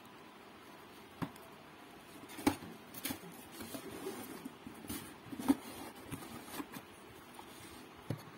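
Handling noises of a zippered fabric lunch bag: scattered taps, knocks and rustles as it is turned over and set down on a cardboard box, the loudest knocks about two and a half and five and a half seconds in.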